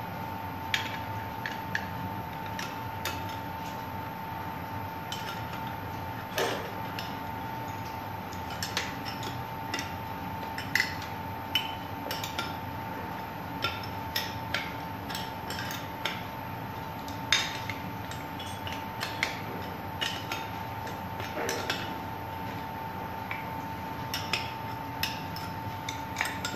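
Steel wrenches clinking and tapping against the flange bolts and nuts of a pump's rubber expansion joint as they are fitted and tightened: irregular, scattered metallic clinks over a steady hum.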